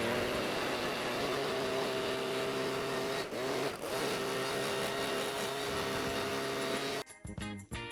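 Handheld electric power tool motor running steadily at work. Its pitch dips briefly, as if under load, about three seconds in, and the tool cuts off about seven seconds in.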